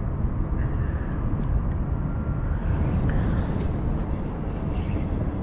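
Steady low rumble of wind buffeting the microphone on an open boat, with a few faint ticks.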